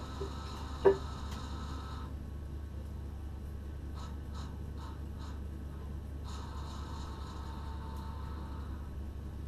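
Steady low electrical hum inside the driver's cab of a Z 6400 electric train standing still, with no rolling noise. There is a single sharp click about a second in, and a few faint short pips around the middle.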